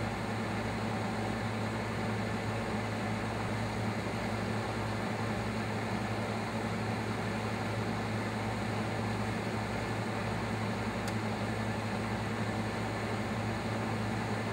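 A cold environmental test chamber running, its refrigeration and circulating fans giving a steady rush with a low hum under it.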